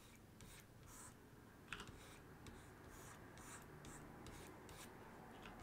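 Near silence: quiet room tone with faint, irregular light scratches and clicks from hands working a computer's input device while painting.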